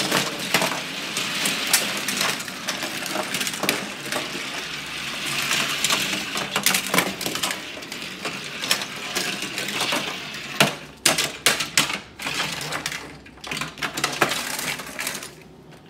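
Small die-cast toy cars clattering and clinking against one another as a pile of them is pushed and raced across a play table. The clatter is continuous, with a run of sharp, loud clacks about two-thirds of the way in.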